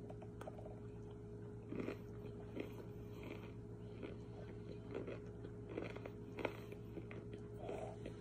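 Crunching and chewing of dried cornstarch 'water chunks', with irregular crunches about every half second to a second starting near two seconds in, over a steady low hum.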